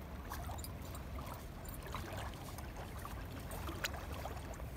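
Steady outdoor river ambience: a low rumble and hiss of running water, with a few faint scattered ticks.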